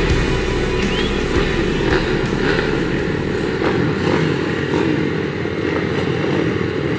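A field of motocross bikes running together at the start gate, several dirt-bike engines idling and blipped at once in a steady, dense engine noise.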